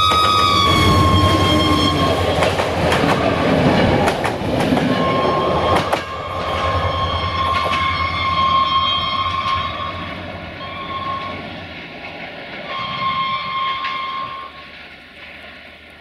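Romanian class 64 (LDE 2100) diesel-electric locomotive passing with a passenger train, sounding its multi-tone horn. The horn drops slightly in pitch as the locomotive goes by, over the engine's low rumble and the clatter of the coaches' wheels over the rail joints. The horn sounds again in one long and two shorter blasts as the train pulls away, and everything fades near the end.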